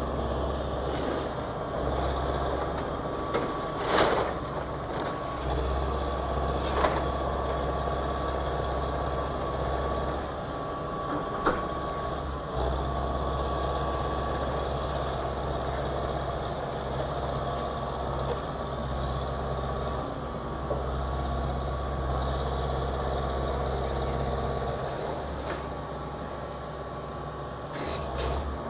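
Excavator's diesel engine running steadily during a building demolition, with a few sharp impacts of breaking material; the loudest comes about four seconds in.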